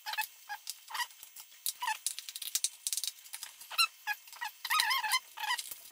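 Small clicks and taps of parts being handled inside an opened iMac, mixed with many short, wavering high squeaks.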